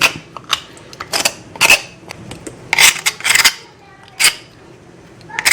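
Mussel shells clicking and clattering against each other as they are handled, in several short, irregular rattles with pauses between.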